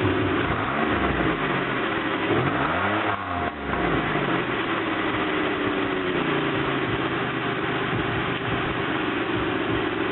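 Exhaust note of a 2005 Pontiac Grand Prix GTP's supercharged 3.8-litre V6 through ZZP headers and a stock cat-back exhaust. The engine is revved up and back down a couple of times in the first few seconds, then settles to a steady idle.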